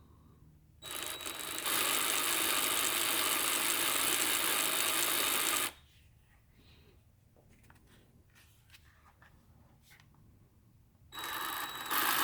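Cordless mini chainsaw with its freshly oiled chain running free, with no load, twice. Each time it spins up in two steps and holds a steady whir. The first run lasts about five seconds and stops, and after a pause with a few small clicks the saw starts again near the end.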